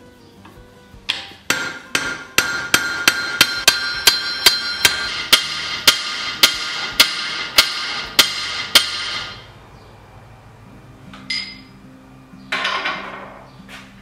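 Hand hammer striking the metal flange of a Sarven wagon-wheel hub, about twenty ringing blows in quick succession, setting the rivets through the spokes; they stop about two-thirds of the way in, followed by a single clink and a short clatter.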